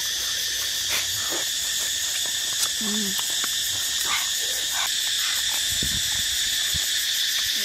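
Steady, high-pitched insect drone of the forest, with scattered soft chewing and smacking as dogs eat a boiled chicken. A brief hummed 'mm' of a voice comes about three seconds in.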